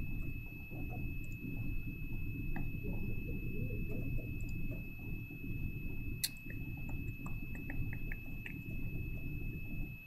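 Low, steady room noise with a thin high-pitched electronic whine over it, and a few light clicks: one sharp click about six seconds in and a quick run of small ticks near eight seconds.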